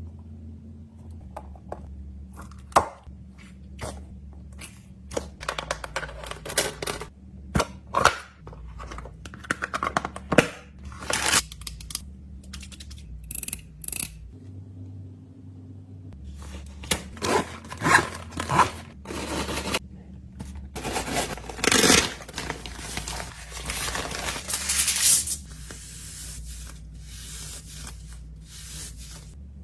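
Close-up handling of plastic packaging and small fidget items: irregular rustling, crinkling, tearing and scraping with scattered clicks and taps.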